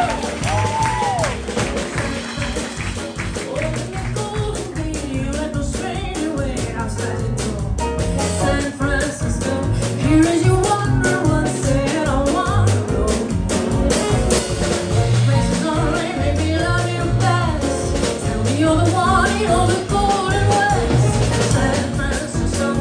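Live band music: an instrumental passage in a jazzy style, with bass notes and drums under a wavering melody line.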